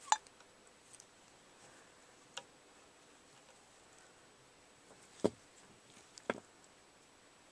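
About four light clicks and taps, spaced a second or more apart, the loudest about five seconds in, from small objects being handled.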